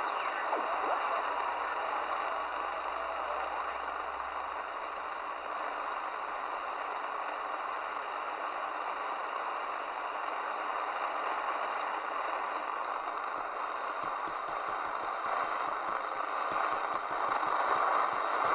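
Midland Alan 8001 CB radio receiving with no station on the channel: a steady hiss of band noise and static from its speaker, with a run of faint ticks near the end.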